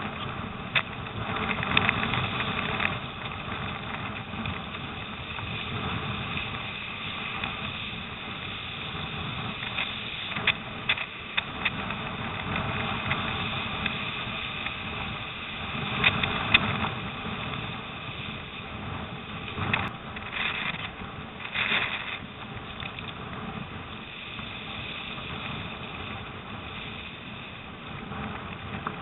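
Storm wind buffeting the microphone of a camera on a surfski's deck, with water rushing and splashing along the hull as it runs through choppy waves. Sharp splashes and slaps break through now and then, the loudest about sixteen seconds in.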